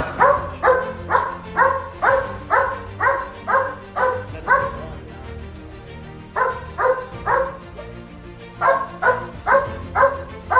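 German shepherd barking repeatedly at a stranger, about two barks a second in runs broken by two short pauses. It is a guard dog's warning at a person it doesn't know.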